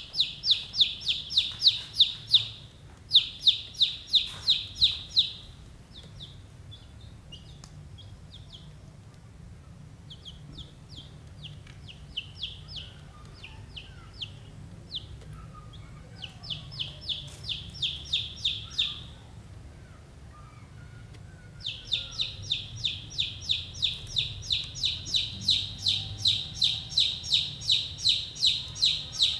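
Baby chicks peeping: runs of quick, high, evenly spaced peeps, about four a second, coming in bouts with pauses between, the longest and steadiest run in the last seven seconds or so.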